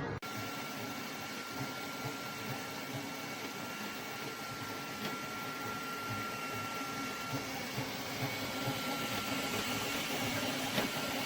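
Flashforge Adventurer 5M 3D printer running mid-print, with a steady mechanical hum and low pulsing from its motors and fans. A thin high whine fades out about seven seconds in and comes back near the end.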